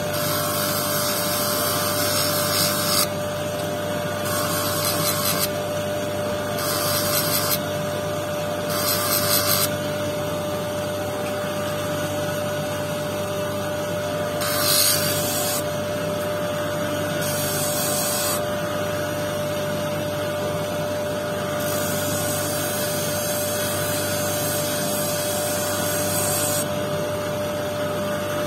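Electric motor spinning a vertical lapidary disc with a steady hum, while a quartz stone on a dop stick is pressed against the disc face in repeated spells of a few seconds, each adding a scraping grind that stops when the stone is lifted off.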